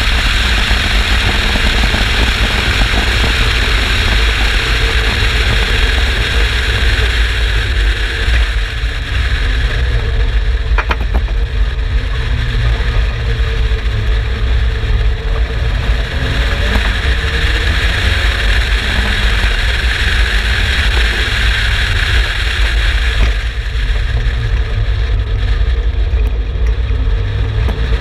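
Turbocharged Mazda MX-5 BP 1.8-litre four-cylinder engine of an Exocet running hard on track, its pitch rising and falling as it accelerates and changes gear, over a heavy steady rumble and rushing noise. A single sharp click comes about eleven seconds in.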